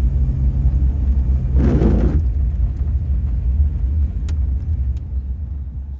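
Cabin sound of a 1994 Chevrolet Astro van on the move: a steady heavy engine and road rumble, with a brief rush of noise about one and a half seconds in and two faint clicks near the end.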